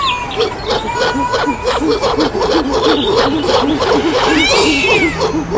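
Cat meowing, with one long rising-and-falling meow near the end, over a rapid string of short low animal calls repeating several times a second.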